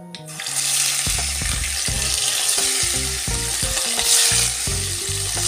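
Marinated rohu fish steaks sizzling in hot mustard oil in a kadai as they are laid in one by one. The frying hiss starts a moment in and keeps on.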